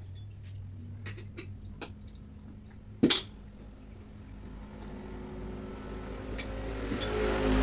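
Light metallic clicks of tools being handled, with one sharp metal clack about three seconds in, over a low steady engine hum. A motor vehicle's engine grows louder near the end.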